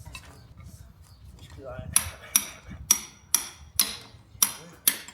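A farrier's hammer striking steel in sharp, ringing metal blows, about two a second, starting about two seconds in. This is typical of knocking open the clinches of the old horseshoe with a clinch cutter before the shoe is pulled.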